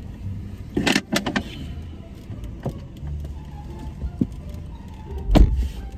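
A car's passenger door clicks open with a few sharp latch clicks about a second in. A person climbs into the seat, and the door shuts with a heavy thud near the end.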